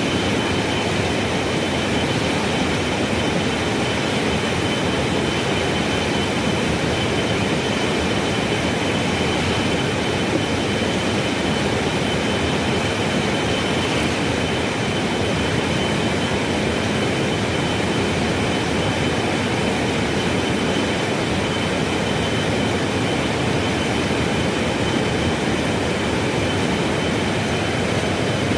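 Swollen river in spate, its water rushing in a steady, loud roar of noise, with a thin steady high-pitched tone running through it.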